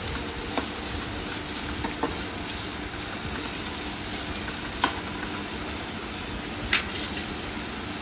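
Sliced onions sizzling steadily in hot oil in a nonstick kadai as they soften, with a steel spoon stirring and knocking sharply against the pan a few times, loudest about five and seven seconds in.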